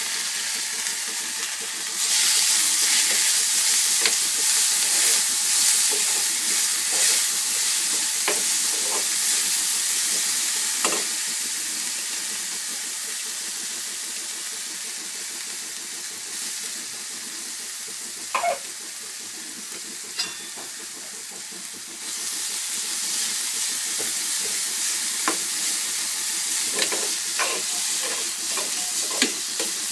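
Ground spice paste frying in hot ghee with cumin in a pan: a steady sizzle, stepping up suddenly about two seconds in and again later, with scattered light knocks of a spoon stirring against the pan.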